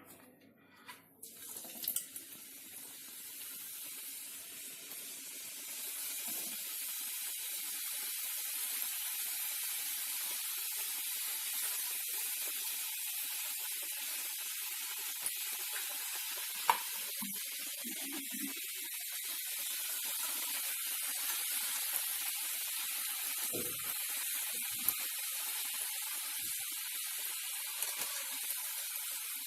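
Gujiya deep-frying in hot oil in a kadhai: a steady high sizzle that starts about two seconds in and builds over the next few seconds, with a few small clicks and taps.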